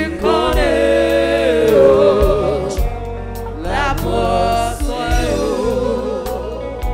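Live gospel worship music: sung voice with wavering held notes over a band with a steady bass and a regular drum beat.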